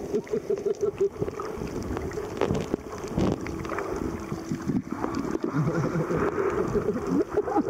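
Muffled underwater sound picked up by a submerged camera: water moving and bubbling around it, with a pulsing low hum and scattered soft knocks.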